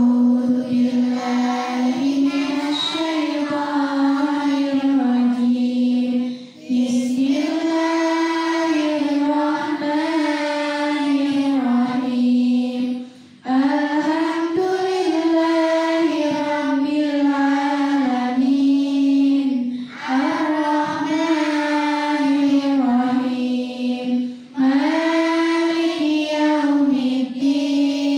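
A group of girls chanting a prayer together in unison, in long melodic phrases with short pauses for breath about every six seconds.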